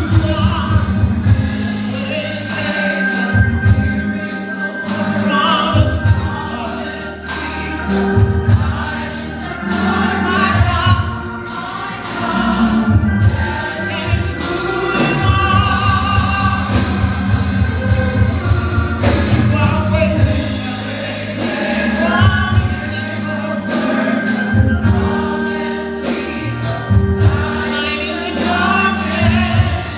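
Gospel choir singing over a band, with a bass line and a steady beat about twice a second.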